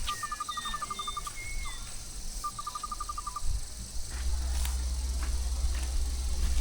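Riverside nature ambience. A rapid, evenly pulsed trill calls twice, and short sliding bird whistles sound over a steady hiss. A low rumble comes in about four seconds in.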